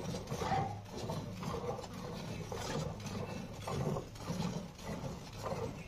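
Milk squirting from a cow's teats into a metal bucket already full of frothy milk, in short, even spurts at about two strokes a second as the teats are hand-squeezed.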